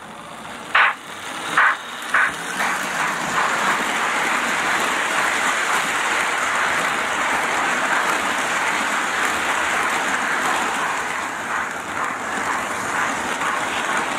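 Lionel O-gauge model passenger cars rolling past close by on three-rail track, a steady rushing rumble of wheels on rail. A few short sharp sounds come in the first three seconds as the noise builds.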